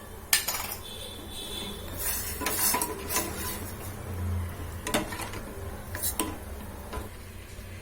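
A spoon clinking and scraping against a cooking pot while stirring, with a few sharp metallic clinks spread through.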